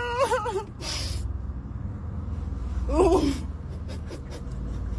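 A woman's wavering, whimpering vocal sounds that could be crying or laughing, with a sharp breath about a second in and one short, wobbling, louder cry about three seconds in. A steady low car rumble runs underneath.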